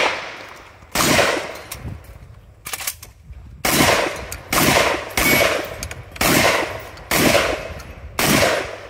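Shotgun fired in a string: a single shot, a pause of about two and a half seconds, then six more shots about a second apart, each with a short echo.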